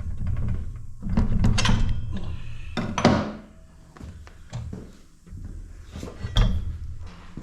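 Knocks and clunks of tools and metal motorcycle parts being handled and set down, with a low rumble through the first few seconds and several sharp knocks, the loudest about three and six seconds in.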